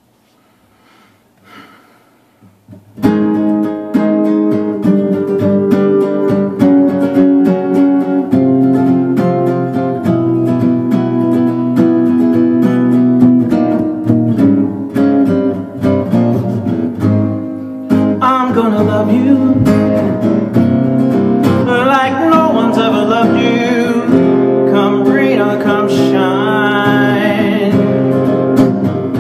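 Acoustic guitar strummed in an up-tempo blues rhythm, starting suddenly about three seconds in after a few faint sounds. A man's singing voice joins over the guitar a little past halfway.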